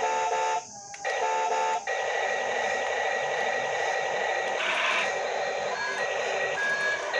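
Remote-control toy construction vehicle running: a steady high electric whir with a held tone that cuts out briefly about a second in. A short rush of noise follows near the middle, and a few short beeps come near the end.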